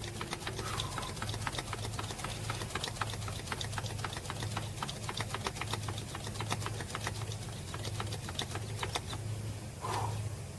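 Hand primer pump on a Detroit DD15 fuel filter housing being worked by hand: a rapid run of clicks over a low steady hum, as the fuel system is primed after a filter change.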